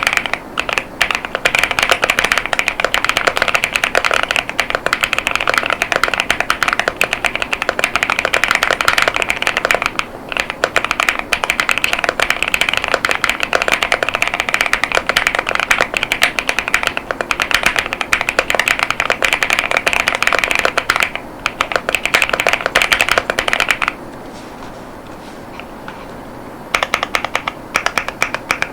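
Fast typing on an Angry Miao CyberBoard mechanical keyboard with Kailh Clione Limacina tactile switches and polycarbonate Cherry-profile keycaps: a dense stream of keystrokes. Near the end the typing stops for a few seconds, then starts again briefly.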